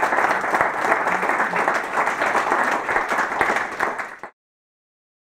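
Audience applauding, many hands clapping at once, stopping abruptly about four seconds in.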